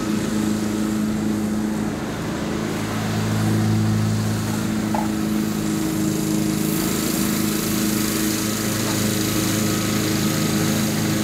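Honda HRX217 walk-behind lawn mower running at a steady speed while it is pushed across the grass, briefly louder a few seconds in.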